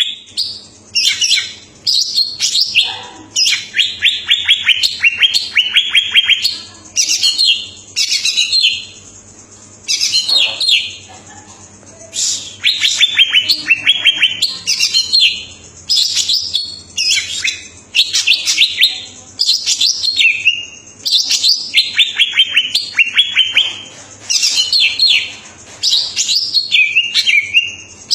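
Green leafbird (cucak ijo) singing in full, vigorous song ('gacor'). It gives phrase after phrase of high, rapid, stuttering trills and whistles ('ngentrok'), each lasting a second or two with brief pauses between. A faint low hum runs underneath.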